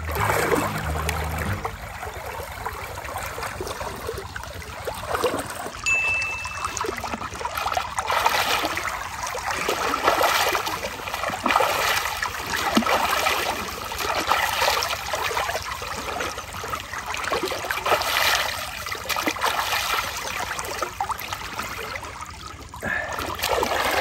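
River water splashing and trickling as a man washes his hair sitting in the shallows, the splashes coming in uneven surges every second or two.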